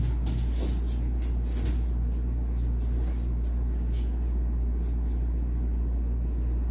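Steady low hum throughout, with a few faint light clicks in the first two seconds.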